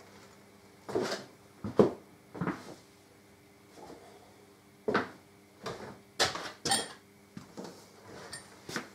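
Irregular knocks and metallic clinks of hand tools being picked up and moved about, with the sharpest knock about two seconds in and a cluster of clatter a little past six seconds.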